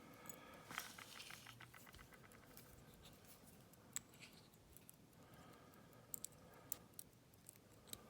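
Faint small metal clicks and scrapes as pins and springs are worked out of a padlock's lock core. A quick run of fine ticks comes about a second in, then scattered single light clicks.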